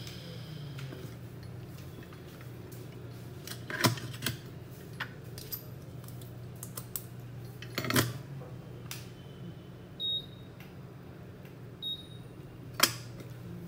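Small metal tools clicking and tapping on a phone-repair workbench, a few sharp clicks standing out, over a steady low electrical hum. Two short high beeps come near the end.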